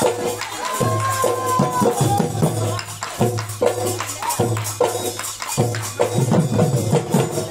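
Bihu dance music: a dhol drum beating a driving rhythm, with jingling percussion and a held, wavering melody line over it.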